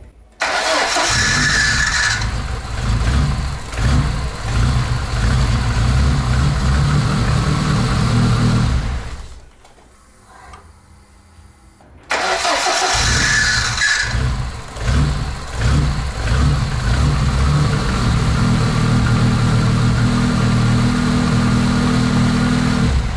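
Car engine cranked and started, then idling steadily; after a few seconds' break it is started again about twelve seconds in and idles on. It is running with about 400 g of diesel added to the engine oil as a flush.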